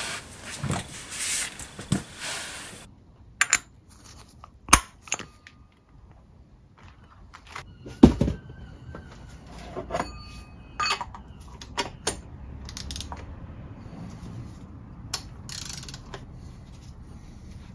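Old engine oil streaming from the sump into a plastic drain container as a steady hiss that stops abruptly about three seconds in. Then come scattered metal clicks and clinks of a socket and ratchet being worked on the oil filter housing cap, with one loud clank about eight seconds in.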